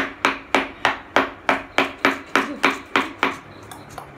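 Rapid, evenly spaced sharp smacks, about four a second, that stop a little after three seconds in.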